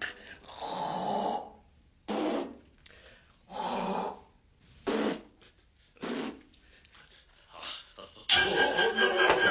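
A man's breathy gasps, about six in a row with short pauses between them, the drawn-out build-up to a sneeze. Near the end a sudden louder sound comes in, with music.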